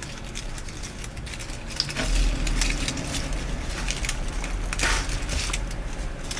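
Paper flowers and the dry twigs of a grapevine wreath crackling and rustling as fingers press the flowers into place, in scattered small clicks. A low hum comes in about two seconds in.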